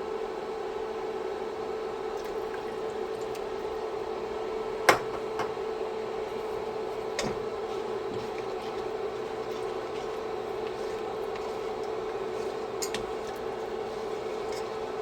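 Chicken broth simmering in a frying pan as heavy cream is poured in, a steady bubbling with a low hum under it. A sharp clink of a utensil or container on the pan comes about five seconds in, and a softer one about two seconds later.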